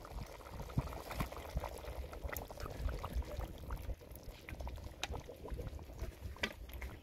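Chicken stew boiling in a wide metal pan, popping and bubbling, while beaten eggs are poured into the sauce.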